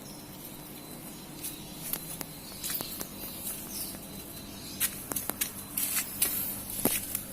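Intermittent rustling and sharp crackles of leaves and twigs, sparse at first and growing busier in the last couple of seconds.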